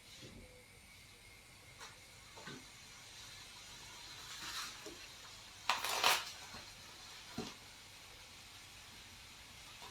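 Kitchen handling noises: a few light clicks and knocks of utensils or dishes over a faint steady hiss, with a short louder scraping or rustling burst about six seconds in.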